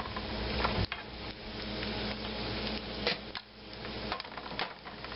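Sliced mushrooms sizzling as they sauté in butter in a nonstick frying pan, with a few light clicks and knocks among the sizzle.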